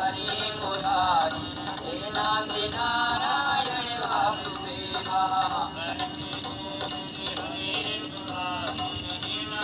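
A Hindi Krishna bhajan played through the Redmi Book Pro's laptop speakers: a male voice sings over harmonium accompaniment, with a steady high ticking beat.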